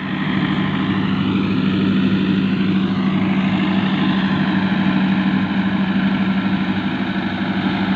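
Tractor engine running steadily under load while driving a straw chopper that picks wheat straw up from the ground and blows it into a trolley: an even mechanical drone with a strong low hum.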